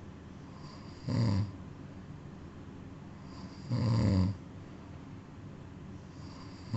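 A sleeping cat snoring, one snore about every two and a half to three seconds: two full snores, with a third starting right at the end.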